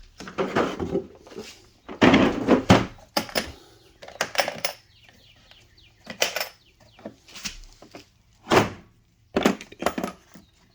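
Tools and gear being handled and set down: a series of thunks, knocks and short clatters, irregular and a second or so apart.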